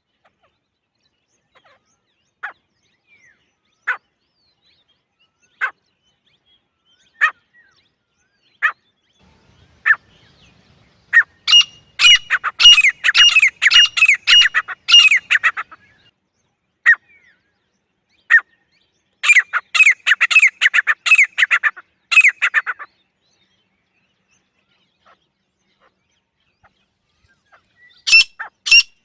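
Female grey francolin calling: single sharp notes about every one and a half seconds, then two fast, loud bursts of rapidly repeated notes lasting a few seconds each, with a third burst starting near the end.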